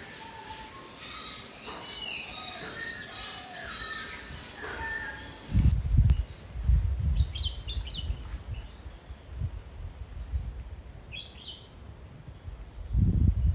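Insects, crickets or cicadas, buzzing steadily outdoors with birds calling over them. About halfway through, the insect buzz cuts off suddenly. Irregular low rumbling thumps, the loudest sound, take over, with short bird chirps above them.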